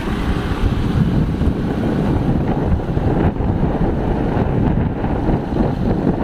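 Strong wind buffeting the microphone: a loud, continuous low rumble with gusty fluctuations.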